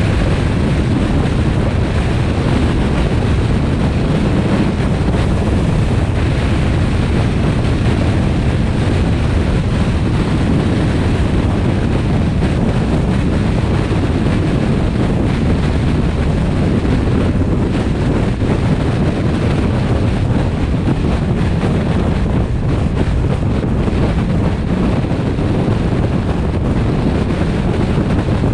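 Car driving at highway speed: steady road and tyre noise mixed with heavy wind rumble on the camera's microphone, unchanging throughout.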